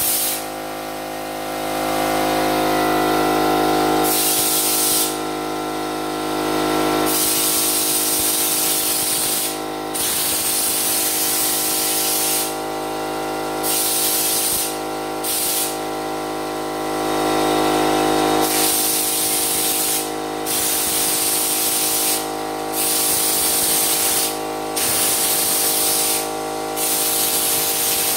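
Air-fed spray gun hissing in repeated spells of a few seconds with short breaks as the trigger is pulled and released, spraying on bedliner. Under it an air compressor's motor hums steadily.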